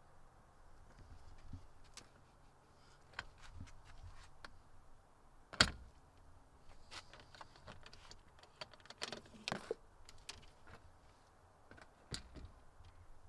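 Scattered light clicks and knocks of things being handled and set down, with one sharper knock about five and a half seconds in and a short run of scraping a little after nine seconds.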